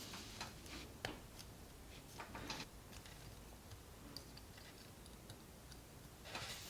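Faint, scattered clicks and short rustles of plastic model-kit parts being handled, with a sharp click about a second in.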